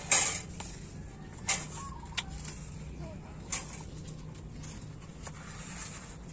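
Cardboard divider cards being handled between glass fish jars: a handful of short rustling scrapes and light taps, the loudest right at the start, over a steady low hum.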